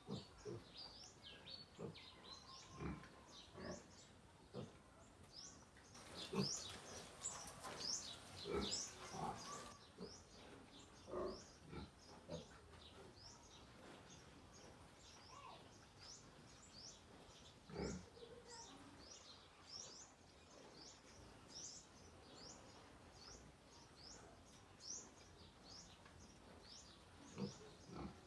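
Piglets eating, with soft grunts and irregular chewing and mouthing clicks, busiest for a few seconds early on. A small bird's high falling chirps repeat about twice a second throughout.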